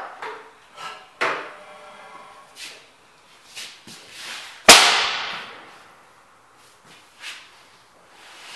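Hand start attempt on a 10 HP Schleicher Schumm slide-valve gas engine: a sharp clank with a ringing tail about a second in, lighter knocks, and a much louder single bang about halfway through that dies away over a second or so, typical of the engine firing or backfiring through its exhaust while being started.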